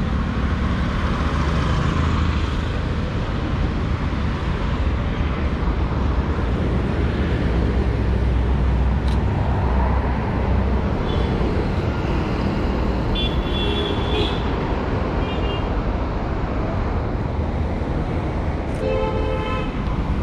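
Street traffic: a steady rumble of passing vehicles, with short horn toots midway and a longer horn sounding near the end.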